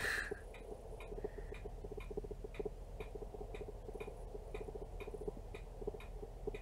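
Rapid, even mechanical ticking, about three ticks a second, with a faint fast rattle under it: the camera's autofocus hunting and trying to re-focus. A brief, louder rustling noise comes right at the start.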